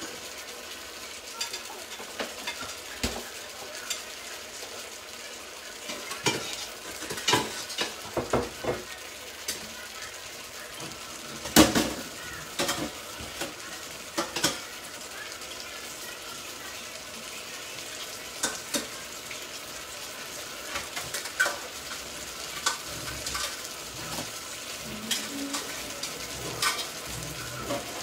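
Fish pieces in tomato sauce sizzling steadily in a frying pan, with scattered sharp clicks and knocks. The loudest knock comes about twelve seconds in.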